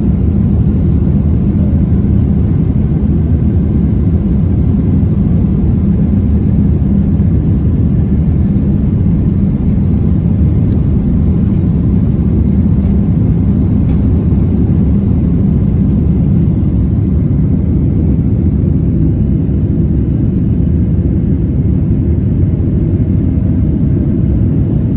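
Inside the cabin of a Boeing 767-400ER at takeoff thrust: a steady, loud low roar from its GE CF6-80C2 turbofans with runway rumble, through the takeoff roll and lift-off.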